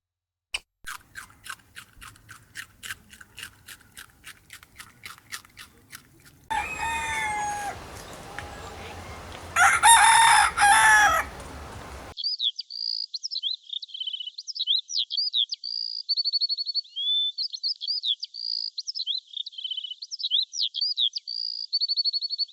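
A run of sharp clicks, about four a second, then a rooster crowing, loudest about ten seconds in. After that, a bird sings high whistles and trills.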